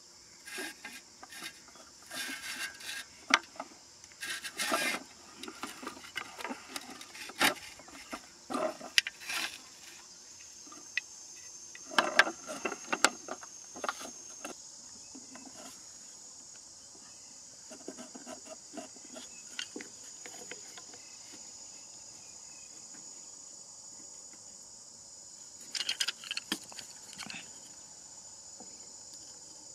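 Insects keep up a steady high-pitched trill throughout. Over it come irregular clicks, taps and scraping rustles of hands working bamboo sticks, string and a plastic bottle, busiest in the first half and again briefly near the end.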